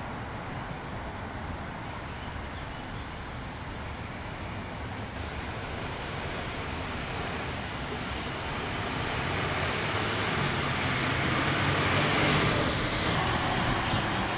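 Steady road traffic noise, with a vehicle that grows gradually louder from about a third of the way in to a peak near the end.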